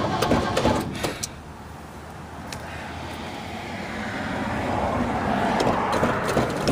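Old 1970s Ford truck engine, flooded, being revved hard to clear it: the revs fall away sharply about a second in, then build back up from about four seconds in.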